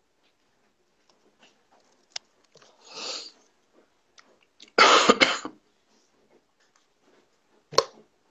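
A man coughing, one loud two-part cough about five seconds in, after a softer breathy hiss a couple of seconds earlier, with a short sharp sound near the end.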